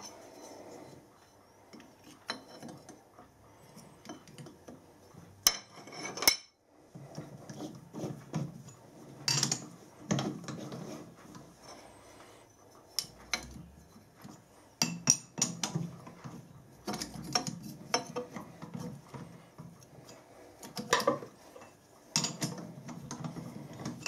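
Four-jaw lathe chuck being worked by hand: a steel T-handle chuck key and the chuck jaws clinking, clicking and scraping at irregular intervals, with quiet gaps between.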